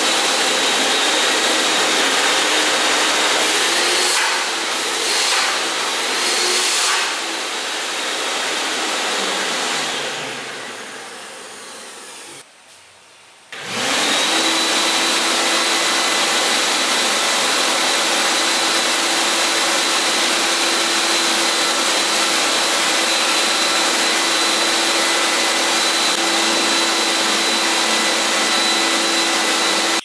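80-litre, 3200 W three-motor commercial wet and dry vacuum cleaner running loudly with a steady whine. About ten seconds in its motors wind down to a stop. After a short pause it starts up again and runs steadily.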